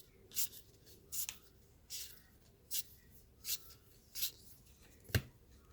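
Trading cards being slid off a stack one at a time, a short papery swish about every three-quarters of a second, with a sharp tap a little after five seconds in.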